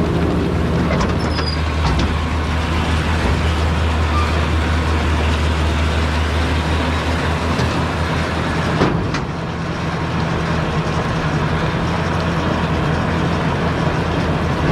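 A White 2-135 tractor's diesel engine running steadily under load while pulling a New Holland BR770A round baler through windrowed hay. About nine seconds in there is a single sharp knock, after which the engine note drops slightly.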